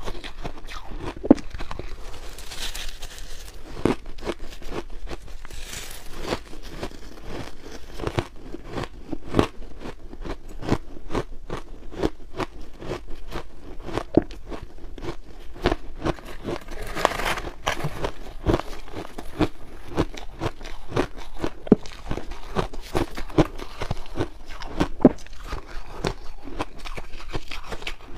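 Crumbly purple-tinted frozen ice being bitten and chewed close to the microphone: many sharp, irregular crunches, several a second.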